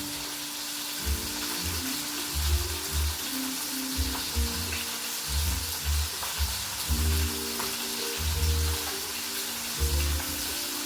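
A steady sizzle of food frying in a pan, under background music with a pulsing bass and held low notes.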